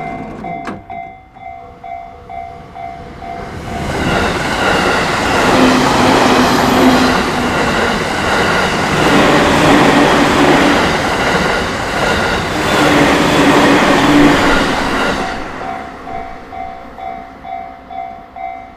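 Japanese level-crossing warning bell ringing in a steady repeating pattern. About four seconds in, a train passing over the crossing drowns it out for roughly eleven seconds, then the bell is heard again as the train clears.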